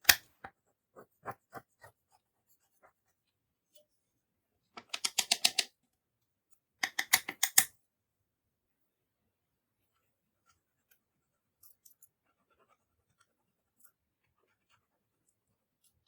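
Clear slime being squeezed and folded by hand, giving off crisp popping clicks: a few single clicks at first, then two quick runs of about eight clicks each, around five and seven seconds in, then only faint ticks.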